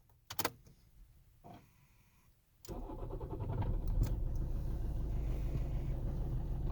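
A couple of sharp clicks, then about two and a half seconds in the Toyota 2AD-FHV four-cylinder common-rail diesel fires up and settles into a steady idle. It is running with one injector unplugged, the one the owner found to be knocking.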